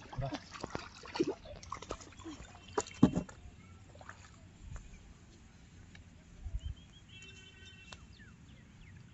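Hands splashing and knocking in the shallow water of a muddy irrigation channel, with a sharper knock about three seconds in. Near the end a bird gives a short high-pitched call.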